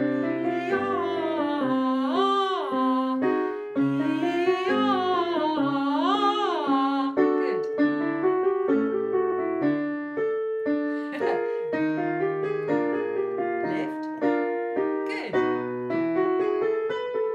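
Piano accompaniment playing a repeating vocal-exercise pattern of chords and notes, with a woman's voice over it for the first several seconds singing warm-up phrases that slide up and down in pitch.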